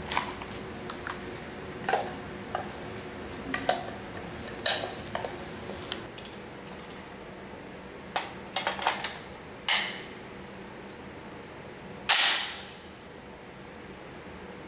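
Metal clicks and clacks of a FAMAE SG542 .308 semi-automatic rifle being picked up and readied to fire, with one louder clack about twelve seconds in that rings briefly off the range walls.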